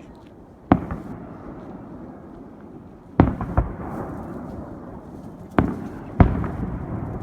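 Aerial fireworks shells bursting overhead: about six sharp bangs, coming in pairs every two and a half seconds or so, each followed by a rolling, rumbling echo.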